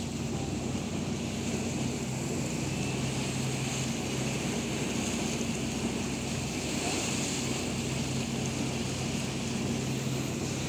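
Steady hum of a boat's engine under way, with water washing along the hull.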